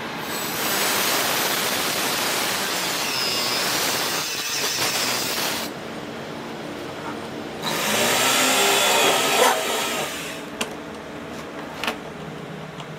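A handheld power tool running while it works the plastic of an old drum, in two long bursts, the first about five seconds and the second about three, with a thin whine in the noise. A couple of sharp clicks follow near the end.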